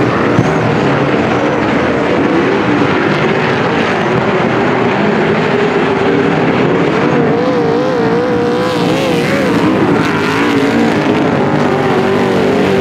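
Several supersaloon race cars lapping a dirt speedway oval, their big V8 engines running hard. The engine notes waver up and down in pitch as the cars work through the turns, most clearly about eight seconds in.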